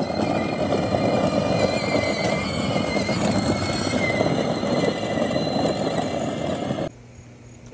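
Kids' ride-on tractor with upgraded 24-volt electric motors driving and drifting on asphalt: a steady motor whine over the rough scraping of its wheels sliding on the road. It cuts off suddenly about a second before the end.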